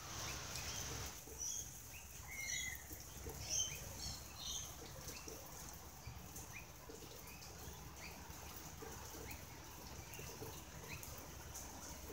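Bird calls: a flurry of short high chirps a second or two in, then a soft chirp repeating about once a second, over a low steady rumble.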